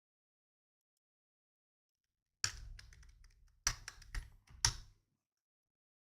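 Computer keyboard keystrokes: a short run of clicking keys, with about four sharper strikes among lighter taps, starting about two and a half seconds in and stopping after about two and a half seconds.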